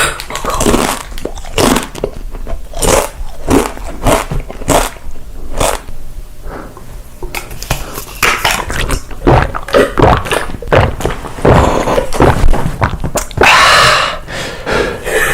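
Close-miked eating: a person biting and chewing food, with a string of irregular crunchy bites and chews and a longer, denser crunch near the end.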